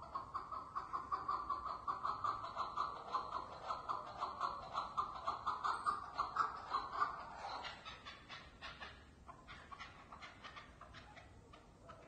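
Chukar partridge calling: a fast, even run of clucking notes, about four or five a second. The run fades out about two-thirds of the way through, leaving a few fainter scattered notes.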